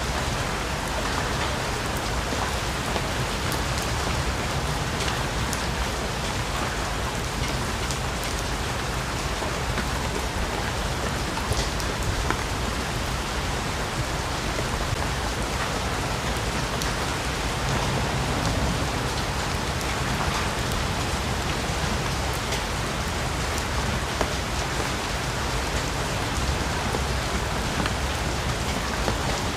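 Steady rain in a rainforest, an even hiss with scattered sharper drop ticks.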